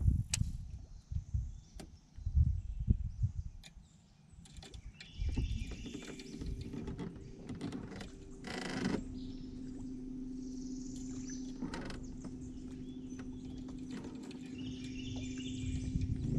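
Wind buffeting the microphone for the first few seconds, then a steady motor hum that starts about five seconds in and holds at one pitch, from the boat's motor.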